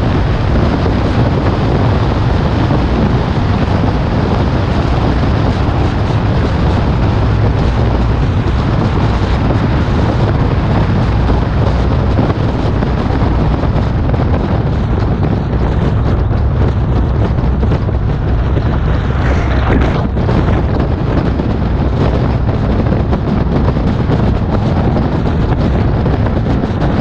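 Steady wind buffeting the microphone of a bonnet-mounted action camera on a moving car, over a low rumble of road and vehicle noise.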